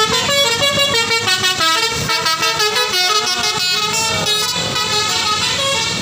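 Tour bus's telolet "basuri" musical air horn playing a quick melody of stepped, multi-note horn tones.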